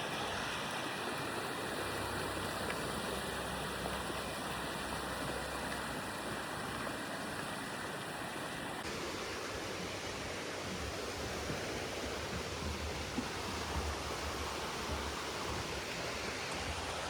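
Steady rushing of running water, like a stream or small falls, with no other clear event.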